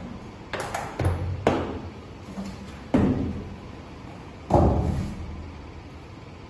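A hard plastic carrying case being lifted out of a cardboard box and set down on a tiled floor: a series of knocks and thuds, the two loudest about three seconds and four and a half seconds in, each ringing on briefly in the room.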